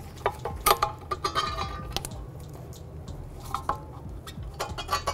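Steel parking brake shoe and its return spring clinking and clicking as the shoe is levered down into its slot on the brake backing plate. A few sharp clinks with brief metallic ringing come in the first two seconds, and lighter clicks follow later.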